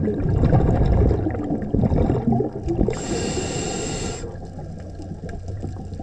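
Scuba diver breathing through a regulator underwater: a bubbling rumble of exhaled air, then a hiss of about a second, with a thin whistle in it, as the next breath is drawn a little past the middle.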